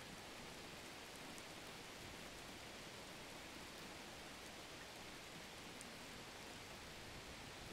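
Faint steady hiss with no distinct sound in it.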